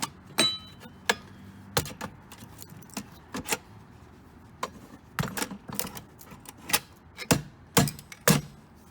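Irregular metal clinks and knocks from hands working at the bent metal parts and stuck coin box inside an opened payphone, with a brief metallic ring about half a second in and the sharpest knocks near the end.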